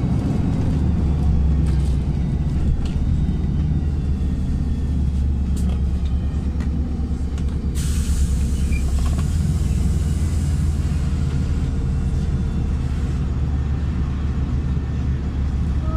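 LiAZ 5292.67 city bus heard from inside the cabin while riding: a steady low engine and drivetrain drone with road rumble. A burst of hiss sets in suddenly about halfway through and fades over several seconds.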